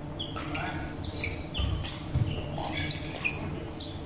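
Sports shoes squeaking repeatedly on a wooden badminton court as players move during a rally, with a sharp racket hit on the shuttlecock near the end.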